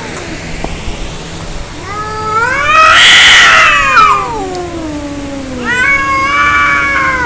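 Angry cats caterwauling in a fight: a long yowl rises to a loud, harsh scream about three seconds in and slides back down, then another drawn-out wail starts near the end.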